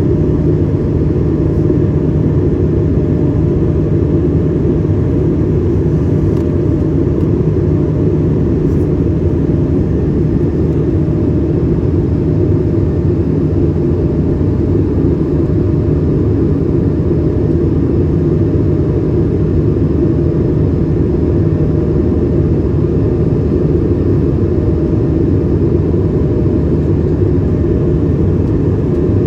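Steady cabin noise inside an Airbus A220-300 airliner: a loud, even rumble of its Pratt & Whitney PW1500G geared turbofans and airflow, with a faint steady hum over it.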